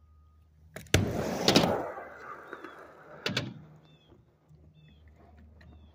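Tony Hawk 31-inch popsicle skateboard on its stock wheels, which the rider calls slow: a sharp clack about a second in, then the wheels rolling loudly on concrete and fading as it moves away, with another sharp knock about three seconds in.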